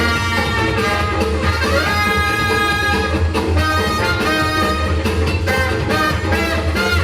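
Loud swing-style dance music with brass over a steady heavy bass; a rising slide about one and a half seconds in leads into a few held notes.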